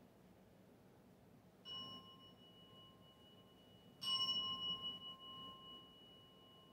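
Buddhist bowl bell (keisu) struck twice, softly about two seconds in and harder about four seconds in. Each stroke rings on as a steady pure tone that slowly fades. The strokes mark the prostrations of the three bows.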